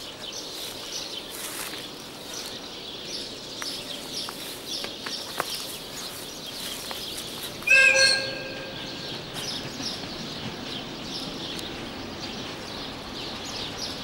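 An approaching train sounds its horn once, a short blast about eight seconds in, over continual chirping of small birds.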